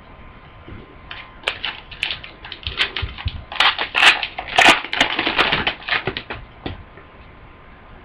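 Trading cards and their foil pack being handled: a run of quick crinkles and clicks as a pack is opened and its cards shuffled, densest around the middle.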